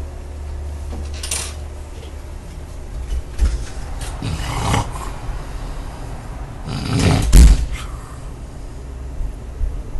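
A man snoring in his sleep: a short snore about a second in, a longer one around four seconds, and the loudest about seven seconds in. The uploader puts the snoring down to sleep apnea.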